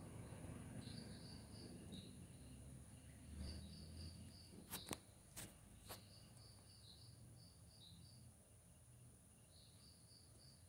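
Near silence with a cricket chirping faintly in short trills of four or five quick pulses, repeating every two to three seconds, over a faint steady high whine. A few sharp clicks come about halfway through.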